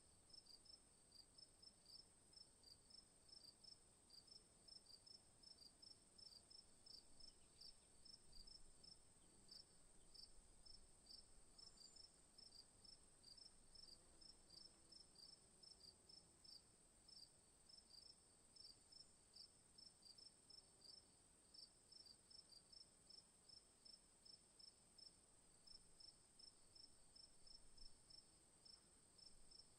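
Crickets chirping: faint, regular chirps about two a second over a continuous high-pitched trill.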